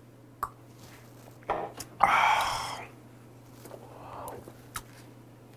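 A man's loud breathy exhale after knocking back a shot, about two seconds in, then a softer slurp as he takes a spoonful of stew, with a few light clicks.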